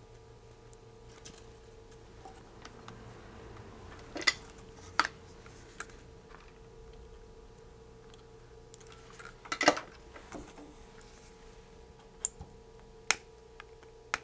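Sparse light metallic clicks and taps of small hand tools and components on an electronics workbench during kit soldering. There are a few short sharp ones, the loudest near the middle, over a faint steady hum.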